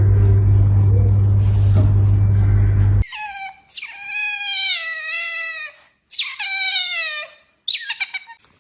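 A steady low rumbling hum that cuts off suddenly about three seconds in, followed by three high-pitched, wavering animal cries. The first cry lasts about two and a half seconds and slowly falls in pitch, the second lasts about a second and a half, and the third is short.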